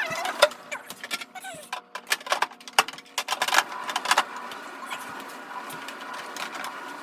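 A run of knocks, clicks and clinks from items and shelves being handled while a refrigerator is cleaned out, densest in the first four seconds, then quieter handling sounds.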